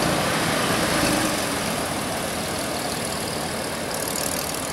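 Porsche 911's flat-six engine running at low, steady revs as the car pulls away slowly.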